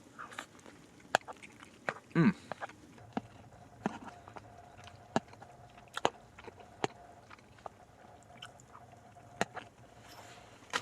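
Close-up eating of pasta: chewing, with sharp clicks of a utensil against the pot or bowl scattered throughout, and a brief "mmm" of approval about two seconds in.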